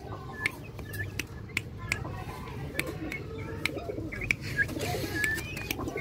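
Young aseel chickens calling: short high chirps and soft low clucking, over many sharp clicks.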